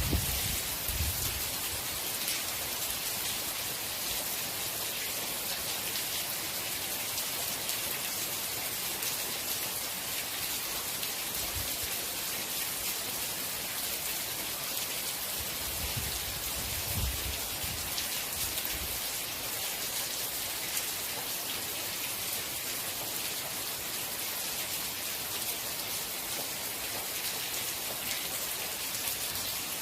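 Steady rain falling, an even hiss heaviest in the high range, with brief low rumbles near the start and again about sixteen to nineteen seconds in.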